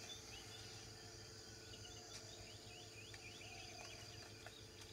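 Faint night-time forest ambience: a run of many short, high chirps, several a second, with a few softer lower calls and a steady low hum underneath.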